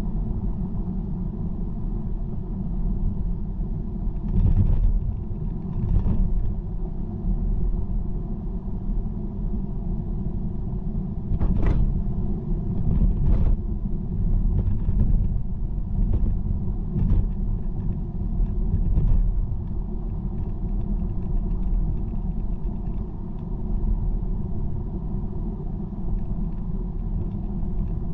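Car driving at motorway speed: a steady low rumble of tyres and road. Through the middle there are several short, louder swishes a second or two apart.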